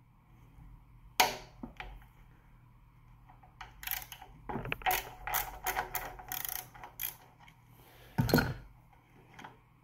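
10 mm wrench working the bottom bolt of a small gasoline engine's carburetor float bowl, loosening it to drain the bowl and check for oil: irregular metal clicks and ratchet-like taps, with a sharp click about a second in and a brief, louder rustle near the end.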